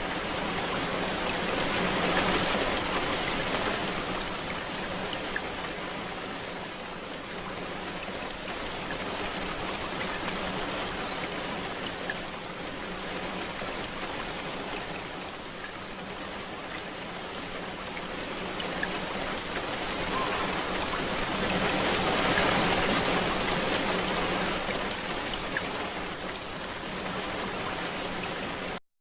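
Steady rain falling, with scattered individual drops ticking. It swells louder twice and cuts off suddenly just before the end.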